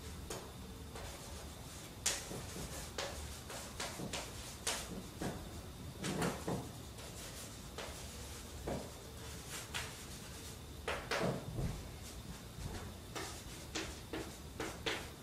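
Chalk on a blackboard during writing: irregular sharp taps and short scrapes, at times several a second, with a couple of duller thumps.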